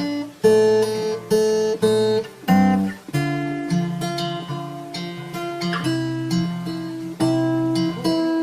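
Music: acoustic guitar playing strummed chords, a new chord struck every half second to a second, with no singing.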